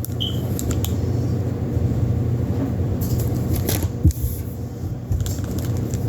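The air nailer's box contents and packaging being handled: scattered clicks and rustling, with a short squeak just after the start, over a steady low hum.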